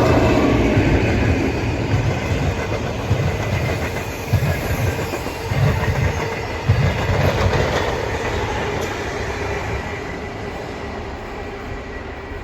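Locomotive-hauled train of Comeng suburban electric cars rolling past, with wheels clacking over rail joints a few times. The rumble slowly fades as the train moves away.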